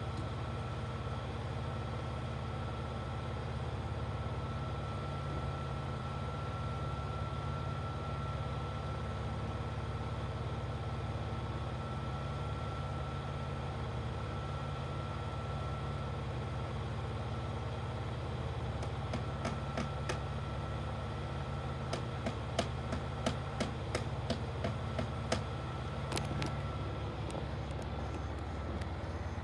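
Bucket truck's engine idling steadily under a faint, thin, steady whine. About two-thirds of the way in comes a quick run of sharp clicks and taps, lasting several seconds.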